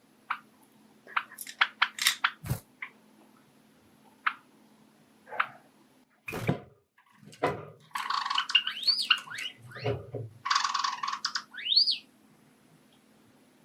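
Pet Java sparrows: scattered clicks and short chirps with a few soft thumps, then from about eight seconds in a stretch of about four seconds of song-like notes with rising and falling whistles.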